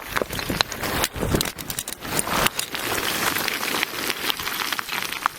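Rockfall: loose stones clattering and bouncing down a slope, a dense, irregular run of sharp clicks and knocks.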